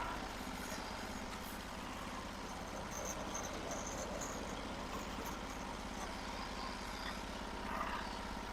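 Norwood HD36 sawmill's gasoline engine running steadily at an even speed.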